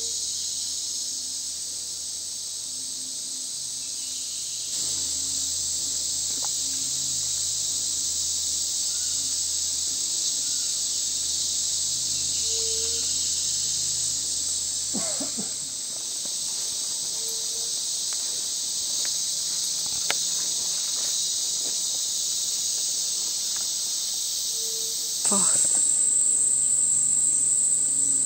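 A tropical forest insect chorus makes a steady, shrill, high-pitched drone, which grows louder near the end. Two brief calls break through, about halfway through and again near the end.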